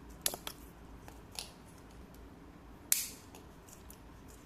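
Sharp hard-plastic clicks and snaps as the plastic top cover of a Traxxas VXL 8S ESC is handled and pressed back on: a few light clicks early, then one louder snap just before the three-second mark.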